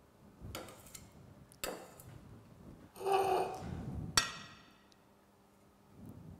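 Metal palette knife clinking and scraping against a steel bowl and cake stand: a few light clicks, then louder clinks about three to four seconds in, the last one ringing.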